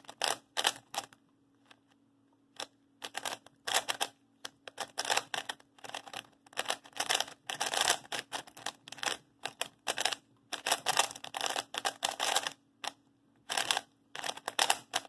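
QiYi Sail W 3x3 speedcube being solved fast: rapid runs of plastic clicks and clacks as its layers turn. There is a short pause about a second in, then near-continuous turning. The cube is freshly lubed with QiYi M-Lube and turns smoothly.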